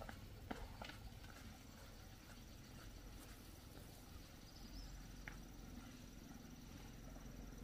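Quiet rural background with a faint, high, continuous insect trill, and a few soft clicks or steps in the first second.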